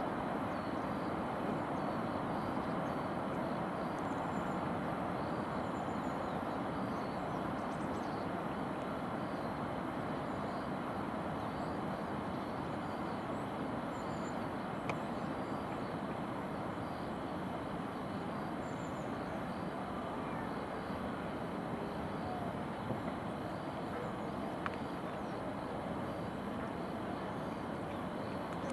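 Steady hum of distant city traffic, fading slightly, with a few faint high chirps.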